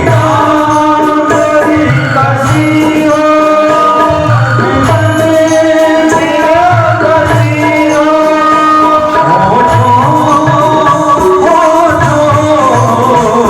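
Devotional song (bhajan) sung with instrumental accompaniment: a singing voice over sustained held notes and a steady drum beat.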